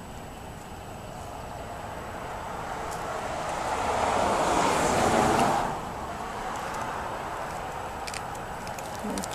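A road vehicle driving past: tyre and engine noise swells over about four seconds, then drops off sharply a little past halfway, leaving a steady low background hum.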